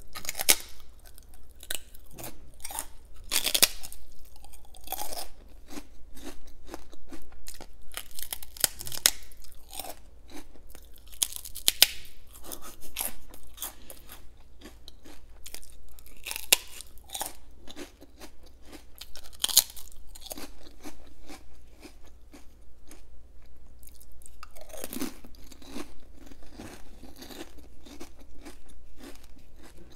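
Crunching and chewing of crisp fried prawn crackers: a dense run of sharp cracks, with a few louder bites scattered through.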